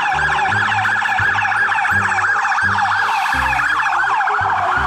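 Several electronic emergency-vehicle sirens sounding at once, in fast rising and falling yelp sweeps that overlap. Near the end one sweep falls more slowly.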